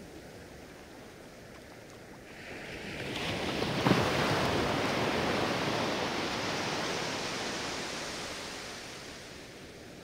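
A small ocean wave breaking on a sandy beach: the surf swells from about two seconds in, crashes with a sharp peak near four seconds, then washes up the sand and fades over the next five seconds, over a quiet steady background of surf.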